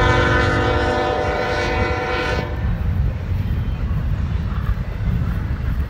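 Diesel locomotive air horn sounding one long multi-note blast of about two and a half seconds, which stops suddenly, over the steady low rumble of a long intermodal freight train rolling past on the main line.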